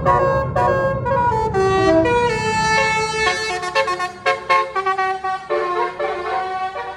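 Tour bus's basuri musical horn (a telolet horn) playing a quick tune, note after note in changing pitches, over the low rumble of the bus engine, which fades about two and a half seconds in.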